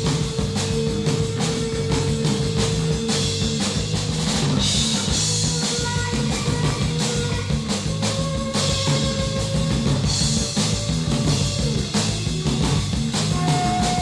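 A rock band playing live: fast, steady drumming over bass and guitar, with long held notes that shift to a new pitch every few seconds.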